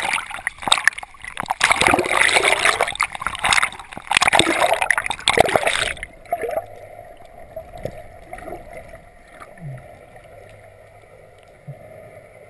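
Water splashing and gurgling around a camera at the sea surface for about six seconds, then a sudden change to the muffled sound of the camera fully underwater, with a faint steady hum.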